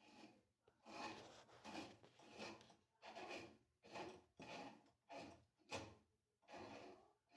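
Faint, even rubbing or scraping strokes, about ten in a row at roughly one and a half a second, as plastic washing-machine agitator parts are worked by hand.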